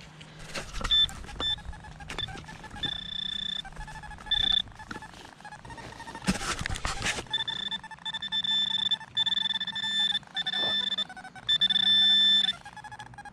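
Metal detecting pinpointer giving repeated electronic beeps, a steady tone cutting on and off as it is worked over a target in the dug hole, with scraping and knocks of digging in sandy soil and one longer scrape about six seconds in.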